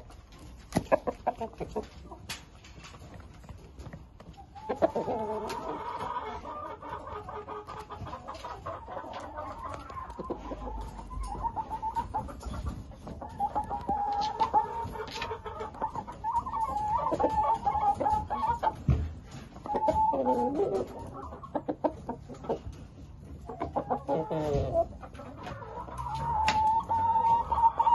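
Shamo chickens calling and clucking, with long drawn-out calls typical of crowing, some of them falling in pitch as they end. A few sharp ticks come in the first seconds before the calls begin, about five seconds in.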